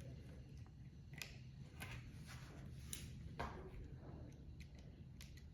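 Faint handling sounds from working on a fridge door and its rubber door seal: a handful of light, irregular clicks and soft rustles over a low steady hum.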